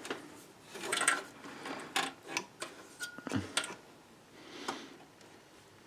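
Irregular clicks, knocks and rustling of a 6-pin power cable being worked through a computer case and pushed into a graphics card's power connector.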